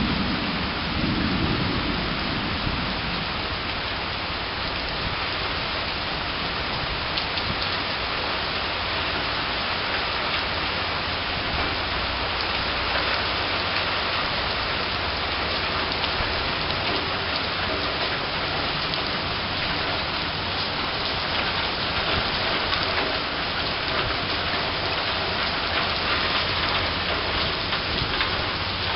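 Rain falling steadily, with a low rumble of thunder in the first few seconds.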